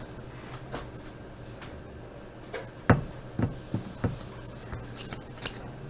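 Trading-card packs being handled on a table: a few soft knocks and taps partway through, then foil pack wrapper crinkling near the end, over a steady low hum.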